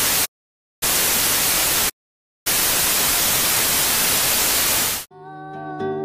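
TV static hiss in three bursts with short silent gaps between them, the last about two and a half seconds long; it cuts off suddenly about five seconds in. Music with steady held notes then fades in near the end.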